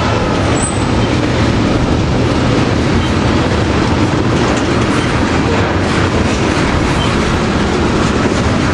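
Freight train of railroad tank cars rolling past close by: loud, steady noise of steel wheels running on the rails.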